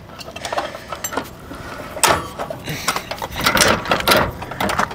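Irregular clicking, knocking and clatter of fishing tackle and gear being handled in a bass boat's storage compartment, heaviest about two seconds in and again near the end.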